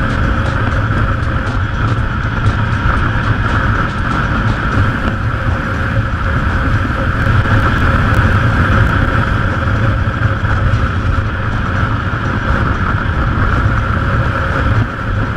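Motorcycle riding at speed on an open road: steady engine, wind and road noise picked up by a camera mounted on the bike, dropping a little in level near the end.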